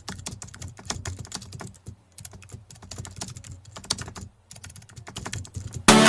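A rapid, irregular run of light clicks, several a second, with two brief pauses.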